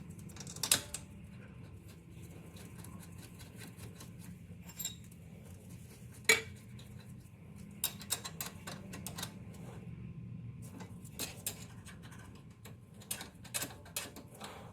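Scattered metallic clinks and knocks of hand tools and brake caliper parts being handled during a brake pad job, the sharpest about six seconds in and a cluster of clicks in the last few seconds.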